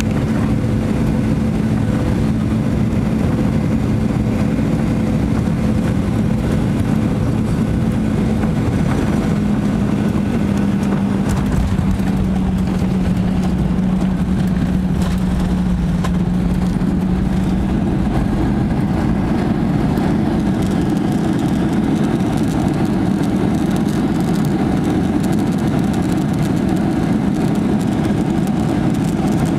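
Boeing 737-900ER's CFM56 jet engines and airflow heard from a window seat in the cabin through landing: a steady rumble with a hum that drops slightly in pitch and fades after touchdown. In the last third the noise becomes fuller as reverse thrust is applied on the rollout.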